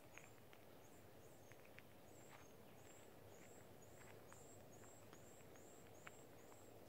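Near silence: faint outdoor ambience with a run of thin, high chirps, about two to three a second, starting about two seconds in, and a few faint scattered ticks.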